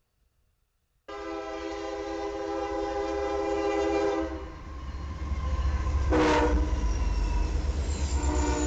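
Diesel freight locomotives passing close, led by a Union Pacific unit: a multi-chime air horn sounds a long blast starting about a second in, then the locomotives' engines rumble heavily as they go by. A short horn blast comes about six seconds in, and the horn sounds again near the end.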